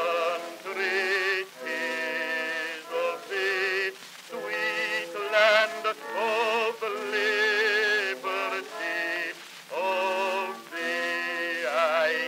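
Background music: a song with a singing voice holding long, wavering notes in phrases separated by short breaks.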